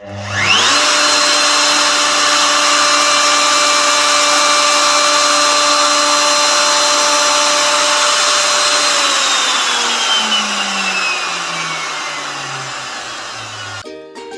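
Electric wood router with a 12.7 mm cutter spinning up to full speed with a steady high whine, then switched off and winding down, its pitch sinking over the last few seconds.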